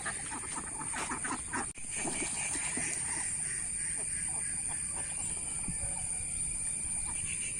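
A flock of ducks quacking, scattered short calls at a fair distance, over a steady high-pitched hiss.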